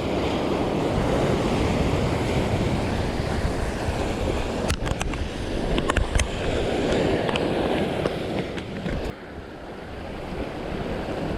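Sea waves washing against shoreline rocks, with wind buffeting the microphone. A few sharp clicks come in the middle, and the noise drops noticeably about nine seconds in.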